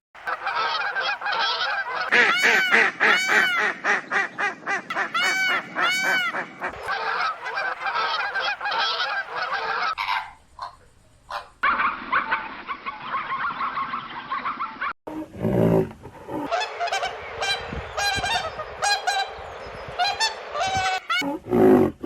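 Geese honking, many repeated short calls overlapping, in a few separately cut clips with a brief lull about ten seconds in.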